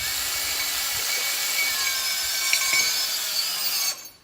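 Power drill spinning a slotted pipe to wind up a ratchet strap, the motor whine steady under a loud rush of webbing, then stopping about four seconds in.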